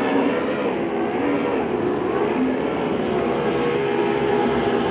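Outboard engines of several racing powerboats running at high revs as the boats speed past, their overlapping engine notes drifting slightly in pitch.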